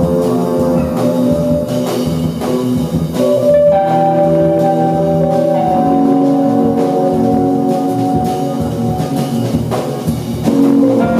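Live jazz band playing: held synthesizer and electronic tones that move to new chords every few seconds over upright bass and drums.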